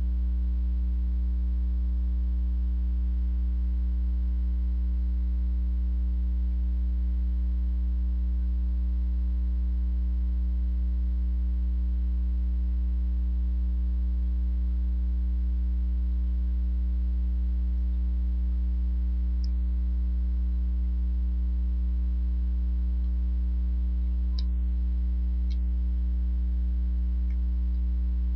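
Steady low electrical hum with a few higher overtones, mains hum in the recording. A few faint short clicks come between about two-thirds of the way in and near the end.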